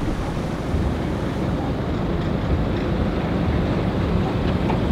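Wind buffeting the microphone on a sailboat's bow: a steady, fluttering low rumble with a soft wash of water noise.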